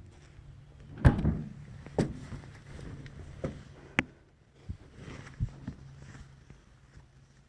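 Tools being handled while a screwdriver bit is chosen: about six separate knocks and clicks, with a faint steady low hum underneath.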